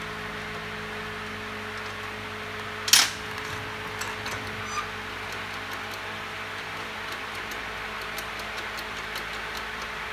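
Metal clicks from hand work on a motorcycle's rear brake rod: one sharp clack, a few lighter clicks, then a run of faint ticks about three a second, over a steady background hum.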